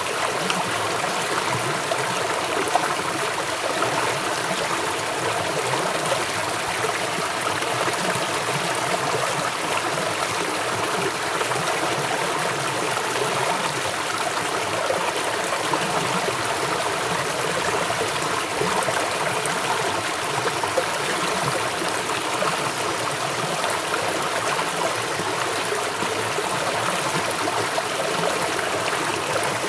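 A river flowing swiftly, a steady rushing and babbling of water with no breaks.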